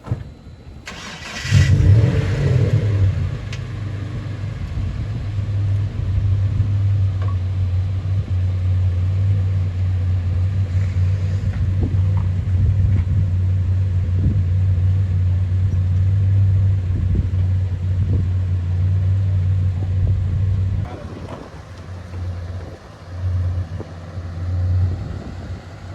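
A car engine starts about a second in and runs with a steady low drone. Near the end it drops and turns uneven, rising and falling.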